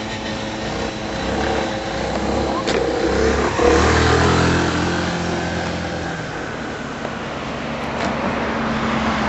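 A motor vehicle's engine running, building up to a louder peak about four seconds in and then easing off.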